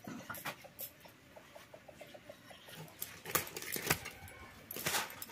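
A quick run of short bird calls in the first couple of seconds, then several sharp knocks from a blade cutting up a plucked chicken and a stone crushing spices on a grinding slab.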